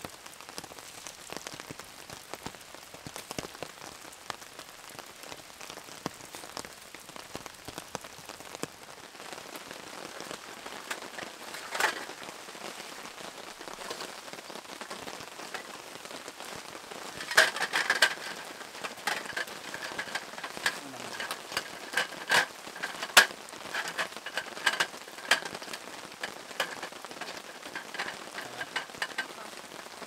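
Steady rain falling. About halfway through, a run of sharp clicks and knocks starts and keeps on irregularly, some with a short ring.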